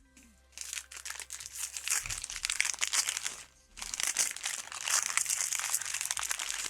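Foil Pokémon booster pack wrappers crinkling as packs are opened and handled, in two stretches with a short pause about three and a half seconds in.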